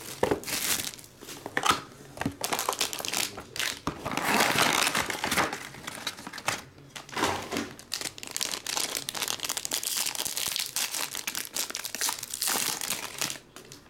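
Foil trading-card pack and packaging crinkling and tearing as they are handled and ripped open, with a few sharp clicks and knocks among the irregular rustling.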